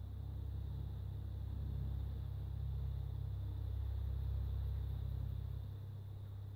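Wind buffeting the microphone: a low rumble that swells through the middle and eases off near the end.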